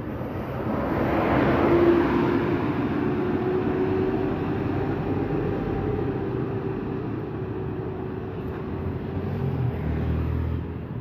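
A Mercedes-Benz coach passing close by, its engine and tyre noise swelling to a peak about two seconds in, with a steady engine note that slowly fades as it pulls away. A deeper rumble from another vehicle rises near the end.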